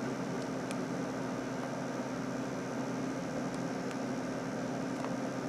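Steady low hum with a faint even hiss, room tone from a running machine such as a fan, with a few faint ticks.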